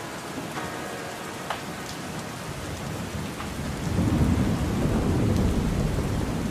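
Steady rain falling, with a low rumble of thunder that swells about four seconds in and keeps rolling.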